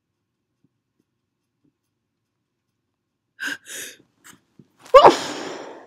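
A person's perfume-induced sneeze: two short gasping in-breaths of the build-up, then one loud sneeze about five seconds in, trailing off over most of a second.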